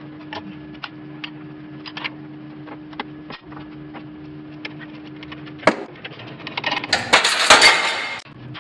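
Steel parts clinking and knocking as a front wheel knuckle and a socket are set on the plates of a shop hydraulic press, with a sharp metallic knock about two-thirds of the way in. Near the end comes the loudest sound, a harsh grating burst lasting about a second, over a steady low hum.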